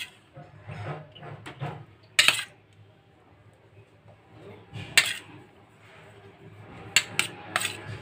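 Steel spoon scooping macaroni from a stainless steel bowl, clinking and scraping against the metal. There are sharp clinks about two and five seconds in, and three in quick succession near the end.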